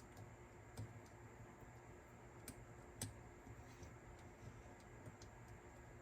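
Faint, scattered clicks and taps of small mechanism parts being handled and fitted during reassembly of a cassette deck's head carriage, a few sharp ticks over a low background hum, the clearest about three seconds in.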